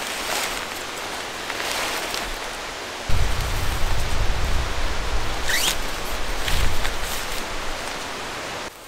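Rustling of nylon bivy-tent fabric and tall grass as the tent is handled and its pole threaded, over a steady outdoor hiss. About three seconds in, a low rumble sets in.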